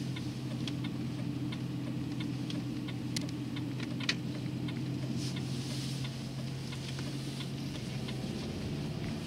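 Car engine running with a steady hum heard from inside the cabin, with the turn-signal indicator ticking evenly throughout. Two sharper clicks stand out about three and four seconds in.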